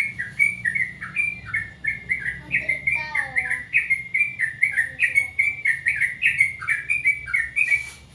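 Yellow-vented bulbul (trucukan) singing: a fast, unbroken string of short chirps, about three or four a second, that stops shortly before the end.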